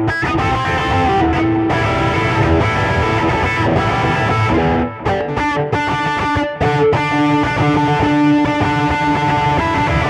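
Electric guitar played through a Zoom G1Four multi-effects pedal on its Monkey RCT preset, which is taken to be a rectifier-style amp model: continuous riffing with some held notes and short breaks about five and six and a half seconds in.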